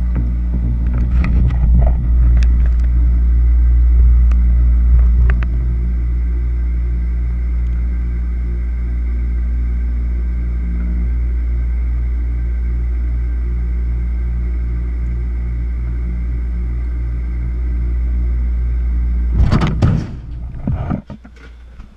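A steady low machine hum with a few light clicks in the first seconds. Near the end there is a loud clatter of knocks, and then the hum stops.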